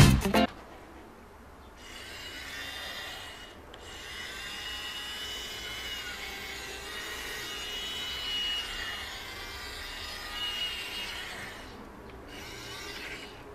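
Toy drill from a Play-Doh Doctor Drill 'n Fill set whirring, with a high whine that wavers in pitch. It breaks off briefly about four seconds in and again near the end.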